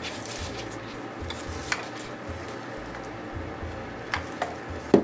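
Small handling noises of hands working ribbon trim around a fabric-covered egg: light rustling with a few soft taps, and a louder knock just before the end as something is set down on the table.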